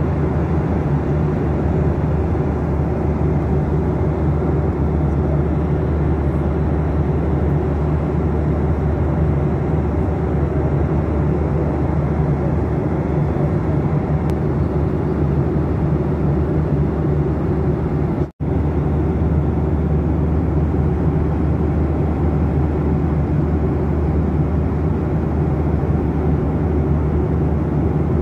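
Steady low drone and rush of an airliner's cabin noise in cruising flight. It cuts out for an instant about two-thirds of the way through.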